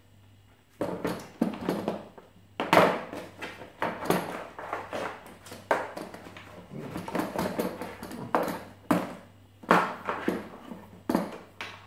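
Handling noise from a hard plastic tool case: irregular knocks and scrapes as a plunge saw is lifted out and its suction hose is pulled free and gathered up.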